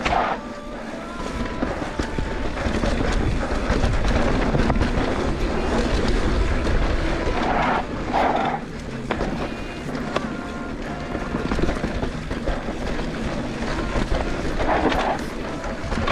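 Wind buffeting an action camera's microphone while tyres rumble over a dirt trail on a fast mountain bike descent, with small rattles and ticks from the bike.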